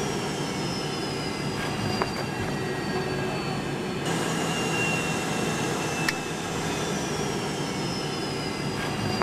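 Steady rumbling noise with faint high squealing tones that slowly fall in pitch, broken by two sharp clicks, about two seconds and six seconds in.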